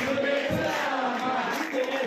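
Hindu devotional song: voices chanting or singing in long held notes over musical accompaniment.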